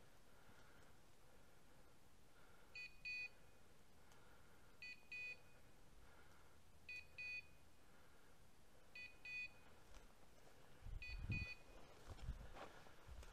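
Electronic beeper collar on a hunting setter sounding a faint high double beep about every two seconds, five times. Near the end, a few low thumps and the rustle of dry bracken being pushed through.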